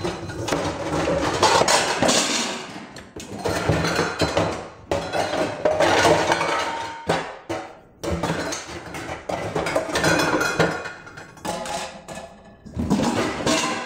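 Metal pots and pans clattering and clanking in repeated bursts as a frying pan is dug out and set down on the stove's cast iron grate.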